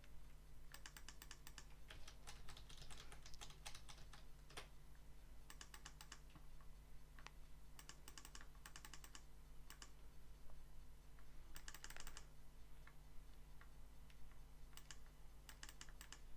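Faint runs of rapid clicking at a computer while drawing: several short spurts of quick clicks, with pauses between, over a steady low hum.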